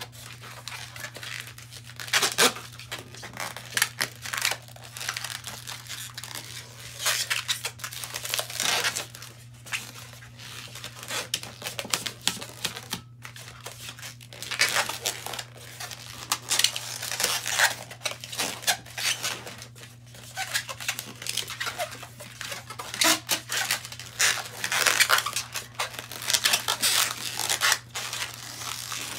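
An inflated latex modelling balloon rubbing and creaking under the hands as it is twisted into small bubbles, in irregular bursts.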